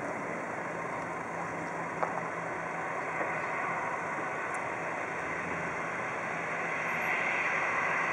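Airbus A340-300's four CFM56 turbofans at taxi power, a steady distant rushing hum with a low drone under it, getting a little louder near the end as the airliner swings round toward the microphone.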